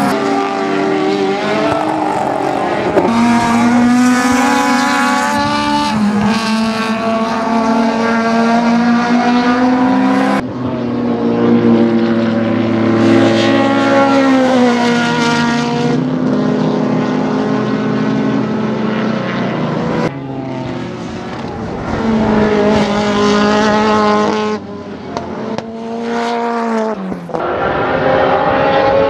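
Ford Escort race car's inline four-cylinder Pinto engine with a Cosworth head and 48 mm Dellorto carbs, run hard on track: the engine note climbs through the revs and falls back at gear changes and lifts. It comes in several spliced clips, with sudden jumps in sound where one clip cuts to the next.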